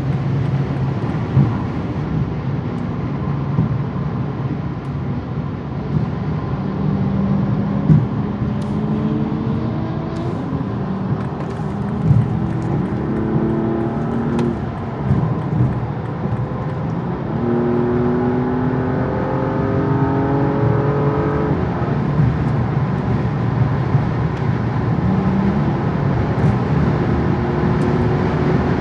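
Engine and road noise inside the cabin of a BMW M235i (turbocharged straight-six, automatic) at highway speed. The engine note rises in steps as the car accelerates through its upshifts, heaviest in the middle of the stretch.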